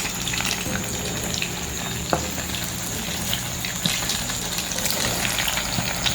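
Dough dumplings frying in hot oil in a pan: a steady crackling sizzle with scattered small pops.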